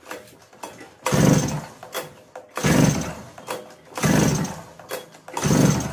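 Recoil starter on a 2-stroke mini tiller pulled four times, about one and a half seconds apart, each pull a short whir of the rope and the engine cranking over without firing: the engine fails to start, which the owner puts down to the carburettor, its prime bulb not getting tight.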